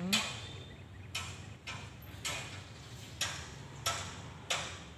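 Sharp metallic clacks, partly in pairs, roughly one every half second to a second, from the wheels of a slow-moving train of ballast hopper wagons crossing rail joints, over a faint low hum.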